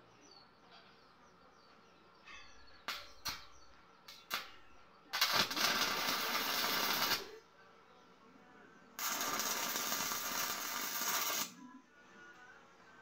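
Stick (arc) welder tack-welding a square steel-tube frame: two bursts of arc crackle and sizzle, about two and two and a half seconds long, about five and nine seconds in. A few sharp clicks come before the first burst.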